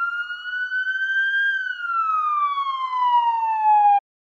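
Emergency-vehicle siren sound effect: a single slow wail that rises in pitch, then falls, and cuts off abruptly near the end.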